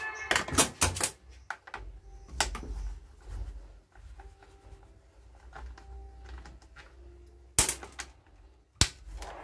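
Hand-tool clicks and knocks on a chainsaw's plastic top cover as a screwdriver works at its fastenings. There is a quick run of clicks at the start, a few scattered knocks, and two loud sharp clicks near the end.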